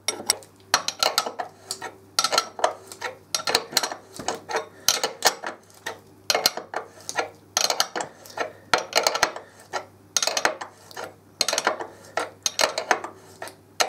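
Metallic clicking in short bursts, about one a second, from a nut being wound along threaded rod to pull a new steering head bearing outer race into a Kawasaki Z1000SX headstock. The race is going in nicely and is not yet tight.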